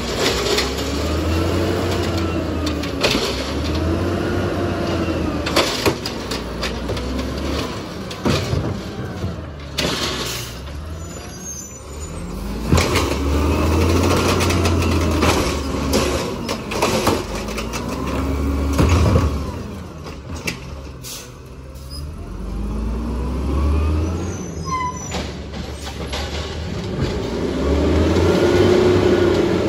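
LNG-powered side-loading garbage truck's engine revving up and falling back repeatedly, usually twice in a row, as the automated arm lifts and dumps yard-waste carts, with sharp clanks from the carts and arm in between.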